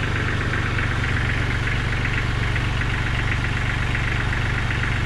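Kubota B1700HD compact diesel tractor engine running steadily at an even speed.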